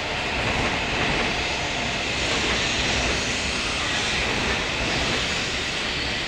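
Steady, even rushing hum of an E233-series commuter train standing at the platform with its onboard equipment running, blended with the drone of the station around it.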